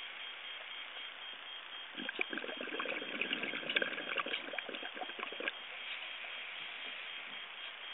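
Scuba diver's exhaled bubbles bubbling out of the regulator for about three and a half seconds, starting about two seconds in, over a steady underwater hiss.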